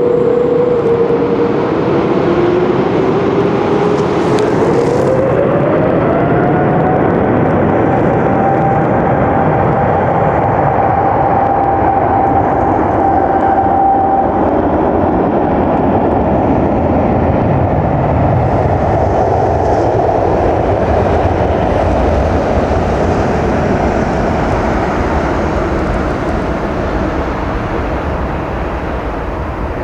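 Airbus A330neo's twin Rolls-Royce Trent 7000 turbofans at takeoff power: a loud, steady jet roar with a whining tone that rises in pitch about five seconds in and then holds, the roar slowly fading toward the end.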